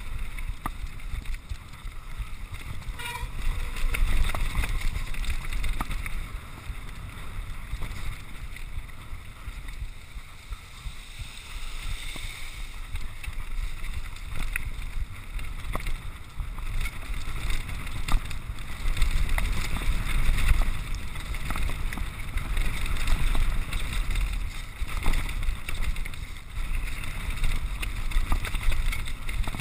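Mountain bike riding down a loose, rocky trail: steady wind rumble on the microphone, tyres crunching over stones, and frequent sharp rattles and knocks from the bike.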